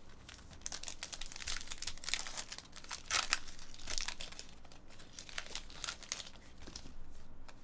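A foil trading-card pack being torn open and its wrapper crinkled and pulled off the cards: a run of crackling rustles, loudest in the middle.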